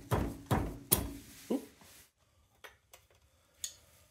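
Pliers clicking against a steel cotter pin as it is worked out of the castle nut on an ATV front wheel hub. There are a few sharp metallic clicks in the first two seconds, then a few faint ticks.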